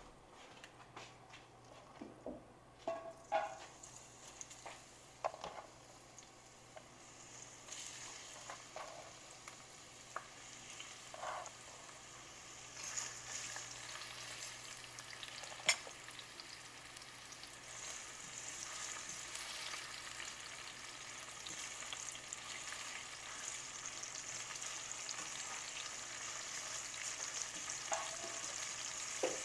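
Sliced red onion and green bell pepper frying in oil in a stainless steel sauté pan. A few clinks and knocks of a utensil against the pan come first. Then a sizzle starts about eight seconds in and grows steadily louder as the vegetables are stirred.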